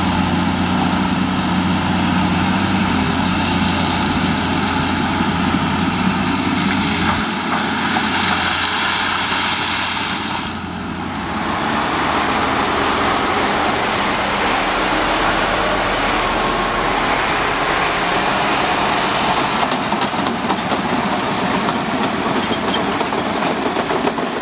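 Heavy diesel engines of tracked construction machines running steadily. A deep, even hum changes character about seven seconds in, and after a brief dip at about eleven seconds gives way to a broader, rougher engine noise.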